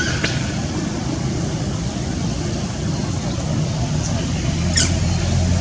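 Steady outdoor background noise, strongest low down, with two brief high chirps, one just after the start and one near the end.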